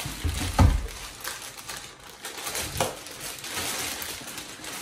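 Clear plastic bag crinkling and rustling as it is worked off the top of a loudspeaker cabinet, with a dull thump about half a second in and a few sharper crackles.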